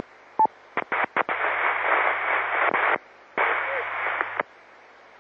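Amateur radio repeater passing bursts of open-carrier hiss with no speech: a short blip with a beep about half a second in, a few quick clicks, then two bursts of hiss of about two seconds and one second. Each burst has a low steady hum underneath and cuts off abruptly.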